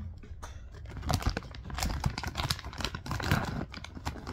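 Crisp crackling and rustling of keropok crackers being handled and picked out of their pack, a dense run of sharp clicks from about a second in.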